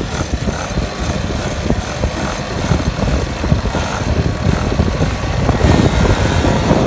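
Several pocketbikes' small two-stroke engines buzzing together on the starting grid, growing louder near the end as the bikes pull away.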